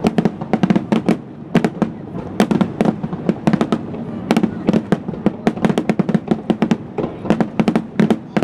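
Aerial firework shells bursting in a rapid barrage, several sharp bangs every second overlapping one another, over a continuous rumble.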